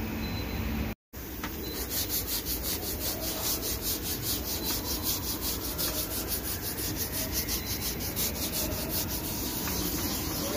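Hand sanding of a body-filler spot on a plastic car bumper with sandpaper on a hand block: quick, rhythmic back-and-forth rubbing strokes that start just under two seconds in.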